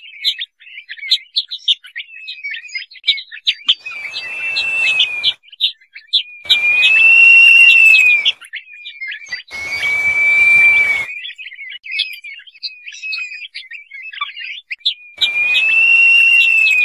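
Crested partridge (roul-roul) calling: four long, arching whistles, each about a second and a half, over a steady run of quick high chirps.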